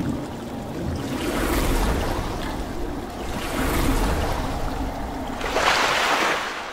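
Sound effect of rushing, splashing water, swelling in three surges with the loudest near the end, then fading away.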